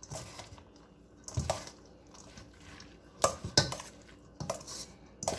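A utensil stirring egg batter with chopped vegetables and bacon in a mixing bowl, with irregular clinks and scrapes against the bowl.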